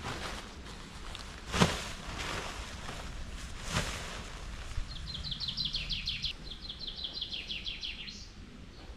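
Heavy canvas tent fabric rustling and flapping as it is pulled out and spread, with the loudest swish about one and a half seconds in. Then a songbird sings a fast run of high repeated notes for about three seconds, ending in a quick flourish.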